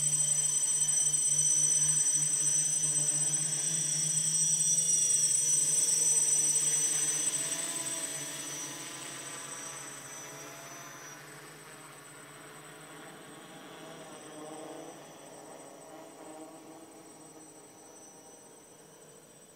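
DJI 450 quadcopter's motors and propellers buzzing steadily, then fading away from about seven seconds in.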